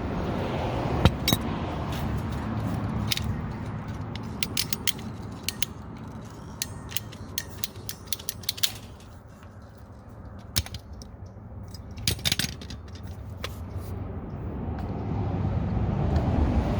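A series of irregular sharp mechanical clicks and clacks over a low rumbling background, the rumble swelling near the start and again near the end.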